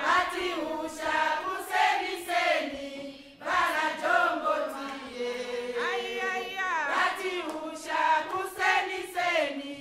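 A group of voices singing a chant-like song in phrases, the pitch bending and gliding, with a short break about three seconds in.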